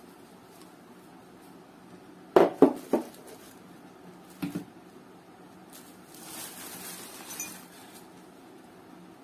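A hard plastic cookware handle clacks down on a table: three sharp knocks in quick succession, then two softer ones about two seconds later. Bubble wrap rustles for a couple of seconds after that.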